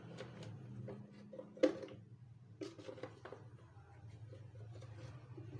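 Light clicks and taps of kitchen items being handled while chicken is seasoned, the loudest a sharp knock about a second and a half in, over a steady low hum.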